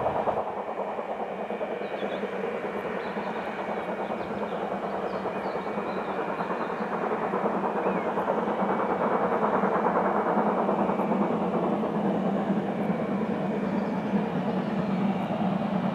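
A train running along the line out of sight: a steady rumble that swells slightly around the middle.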